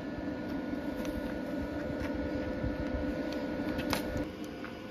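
Cooling fan of a Bestarc BTC500DP plasma cutter running steadily at idle, a hum with a few constant tones. There is a faint click about four seconds in.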